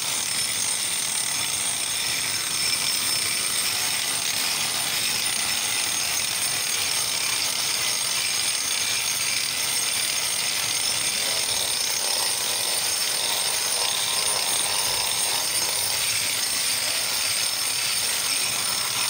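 Electric angle grinder with a diamond cup wheel grinding paint off a concrete wall: a steady, high-pitched whine over a rough grinding hiss, held at an even level throughout.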